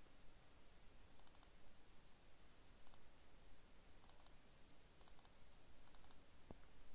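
Near silence with faint clicks from a computer keyboard and mouse, a small cluster about every second, several coming in quick pairs or threes.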